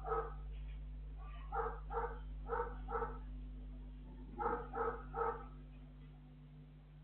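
Small dogs barking in short bursts: a bark just after the start, two quick pairs, then three in a row near the middle. A steady electrical hum from the surveillance camera's microphone runs underneath.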